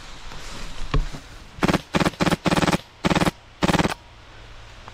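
Airsoft rifle, a Wolverine MTW running on high-pressure air, firing about six short full-auto bursts in quick succession over roughly two seconds. Each burst is a fast rattle of individual shots.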